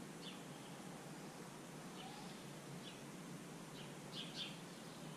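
Faint bird chirps: a few short, high calls spread out, with two or three close together near the end, over a steady low background hiss.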